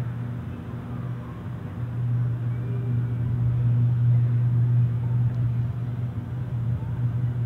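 Loud, steady low electrical hum from a failing Con Edison power transformer that is arcing and lighting up the night sky.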